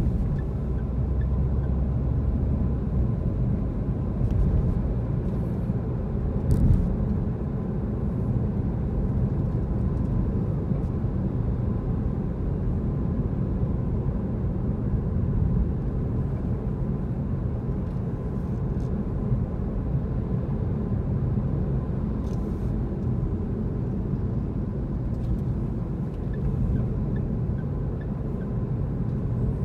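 Steady low rumble of road and engine noise inside a moving car's cabin, with a few faint clicks along the way.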